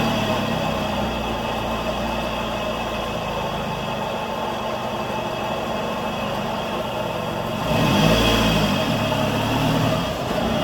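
1997 Toyota RAV4's four-cylinder engine idling steadily just after a start, warming up before an oil change, with a short swell in level about eight seconds in.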